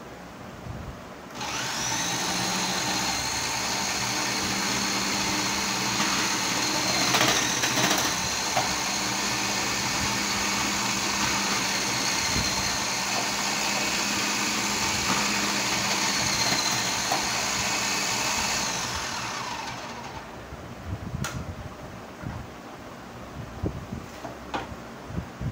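Vitamax VM 502 food processor's motor switched on about a second in, running steadily with a high whine while onion, potato and tomato are pressed through its stainless-steel slicing disc, with a few knocks from the vegetables. About three quarters of the way in it is switched off and spins down, followed by light clicks of plastic parts being handled.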